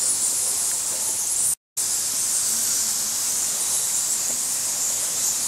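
Steady high-pitched hiss, with a brief dropout to complete silence about one and a half seconds in.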